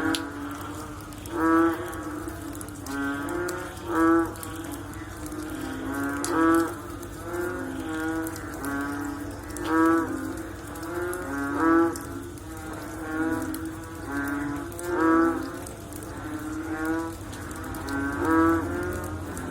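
A chorus of frogs calling after rain: low, pitched calls repeating roughly every second and a half, several frogs overlapping.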